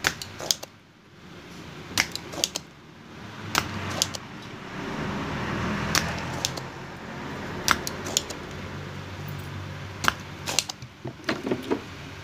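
Spring-loaded desoldering pump snapping and clicking, about a dozen sharp, irregularly spaced clicks, as solder is sucked from a slide potentiometer's pins on a mixer circuit board. A low rumble swells and fades in the middle.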